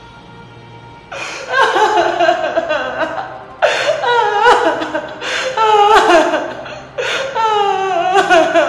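A woman wailing and sobbing in distress, four long cries that fall in pitch, starting about a second in.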